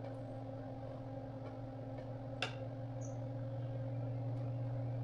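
Steady low electrical hum from the powered spectrum analyzer on the bench, with a single sharp click about halfway through; the hum grows a little louder in the second half.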